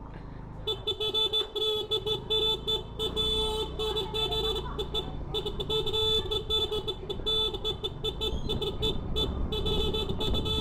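Scooter horn sounded in long, near-continuous blasts with a few short breaks, starting under a second in, over a low rumble.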